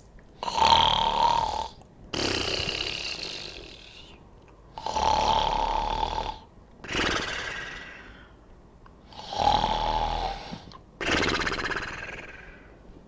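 An animated cartoon character snoring in a slow, even rhythm: three snore cycles about four and a half seconds apart, each a loud rasping snore followed by a longer one that fades away.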